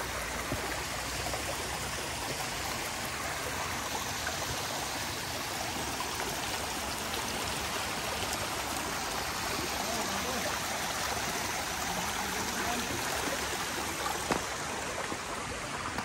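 Small rocky creek running over stones, a steady rush of flowing water.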